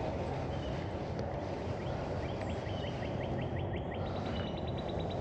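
Steady outdoor background noise. From about two seconds in, a fast run of short, high, evenly spaced ticks that steps up a little in pitch about four seconds in.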